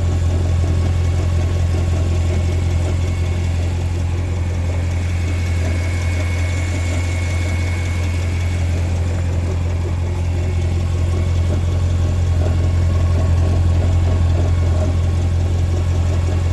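Car idling with a steady low hum. Under it is a rough, grainy noise from beneath the car, which the owner cannot identify and places around the middle of the car.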